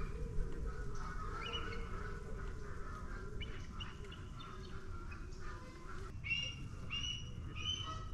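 A bird calling outdoors: a few faint calls early on, then from about six seconds in a run of short, evenly spaced calls, roughly one every 0.7 seconds, over a low steady rumble.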